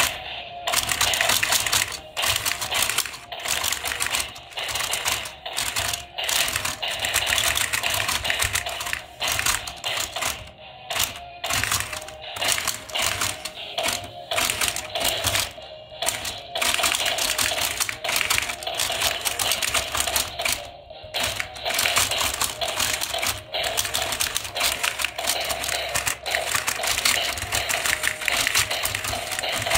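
Plastic boxing-robot toy clattering as its two fighter figures punch: a fast, uneven run of plastic clicks and knocks from the punching arms and mechanism, over a faint steady motor hum.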